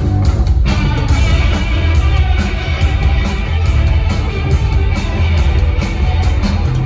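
Live rock trio of electric guitar, electric bass and drum kit playing loudly, heard from among the audience, with a heavy low end; the upper range fills out about half a second in.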